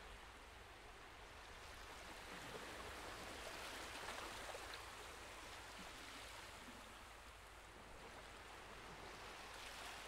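Faint wash of sea waves, swelling about two seconds in and fading a few seconds later, with a lighter swell near the end.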